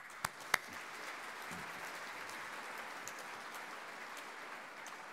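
A few sharp claps close to the microphone at the start, then an audience applauding steadily, beginning to fade near the end.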